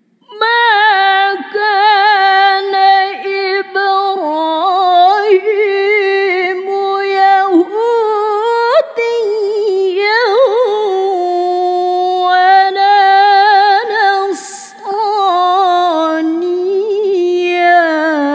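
A woman's solo voice reciting the Qur'an in the melodic tilawah style, held notes with fine vibrato and ornamented turns, close to the microphone. She starts about half a second in, takes a quick breath near three-quarters through, and the phrase closes at the end.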